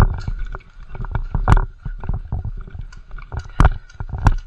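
A string of irregular sharp knocks and crackles, several of them loud, over a steady low rumble.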